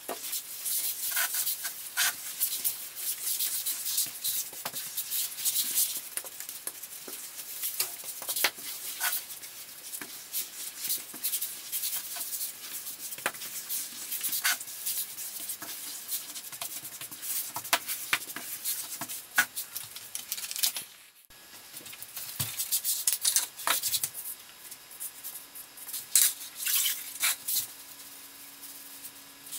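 Grout float and grout sponge scrubbing and scraping across a ceramic tile floor as grout is worked into the joints and wiped off, a quick run of scratchy rubs. It breaks off briefly about two-thirds of the way in.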